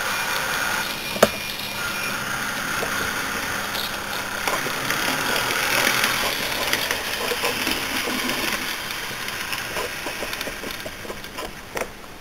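Model train running along the layout track: a motor whine with the wheels rolling on the rails, growing louder as it passes close about six seconds in, then fading. A sharp click sounds about a second in, and several small clicks come near the end.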